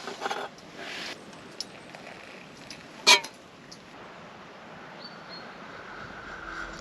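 A few knocks and clinks of camping gear being handled, the sharpest a single clink about three seconds in, over a faint steady hiss.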